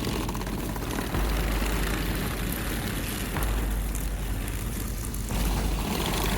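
3D-printed RC tank driving: its drive motors and plastic track links make a steady mechanical running noise, with a low rumble that swells about one, three and five seconds in.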